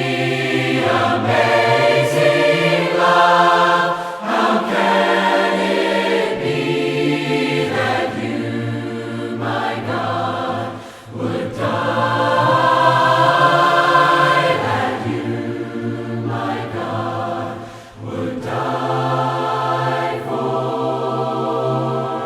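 A choir singing a hymn a cappella in several-part harmony, slow held chords with two short breaks between phrases.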